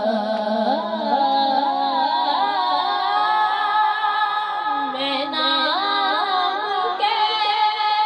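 A boy singing a naat, a devotional hymn, into a microphone, his voice gliding through long, wavering held notes.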